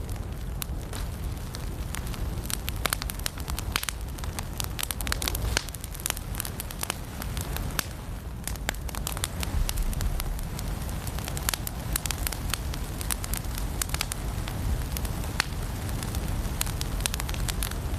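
Firewood burning in a fireplace, crackling steadily with many irregular sharp pops over a low, steady rumble.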